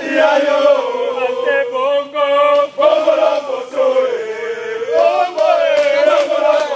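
A group of men's voices chanting a song in unison, with long held notes that break briefly twice.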